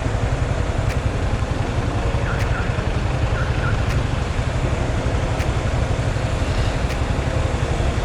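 Motorcycle riding through city traffic on wet roads: a steady rumble of engine and wind with road noise.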